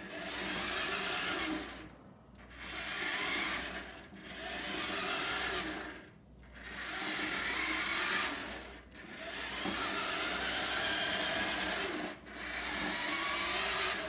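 Small electric drive motor of a vintage remote-controlled butler tray whirring as it drives across a laminate floor, in runs of two to three seconds broken by brief pauses.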